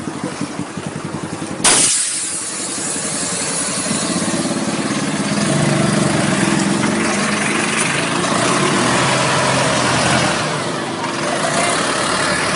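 Diesel coach engine running close by, growing louder a few seconds in. About two seconds in, a sudden loud hiss breaks in and fades.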